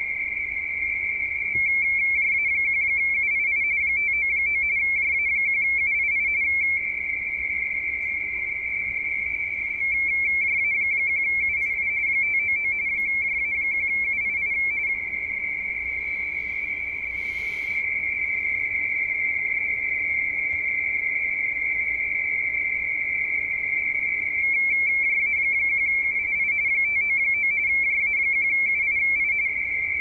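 Radioteletype (RTTY) signal from an Icom IC-7600 transceiver's speaker on the 17-metre amateur band: a steady, high warbling two-tone chatter as the receiver copies frequency-shift-keyed data, its level stepping up and down several times. A brief rustle comes about halfway through.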